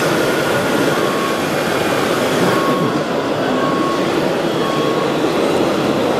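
Steady mechanical rumble with no pauses, with a few short faint beeps coming and going over it.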